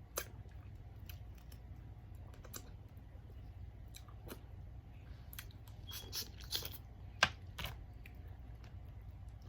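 Eating a seafood boil: scattered small clicks and crackles of shells being handled and chewed, growing busier and louder about six to eight seconds in.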